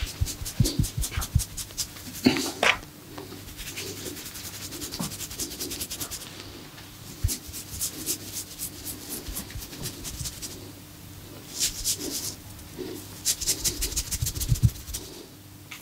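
Massage hands working on skin: runs of quick, rhythmic strokes that come in several bursts with short pauses between them.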